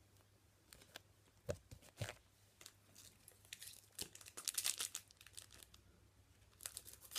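Crinkling and tearing of a foil trading card pack wrapper in short rustling bursts, with small clicks, busiest about four to five seconds in and again near the end.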